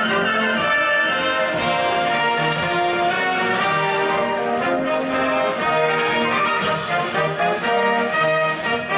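Live band music with brass carrying sustained chords and a melody, playing continuously.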